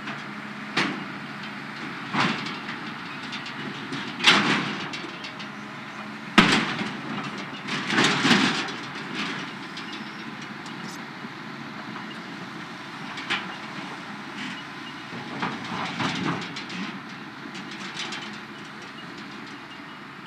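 Hydraulic excavator running steadily while its bucket crushes and drags a structure, with a string of sudden crunches, bangs and clattering debris, the sharpest bang about six seconds in.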